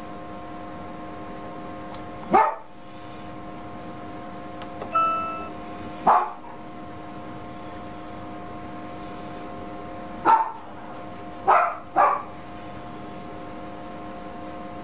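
A dog barking: five short, separate barks, two of them close together near the end.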